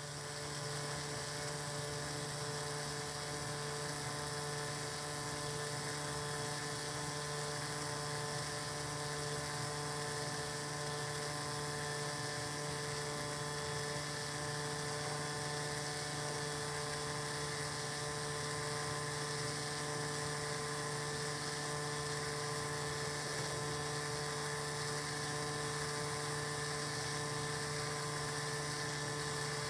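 A steady mechanical hum with a high whine over it, like a small electric motor running, unchanged throughout.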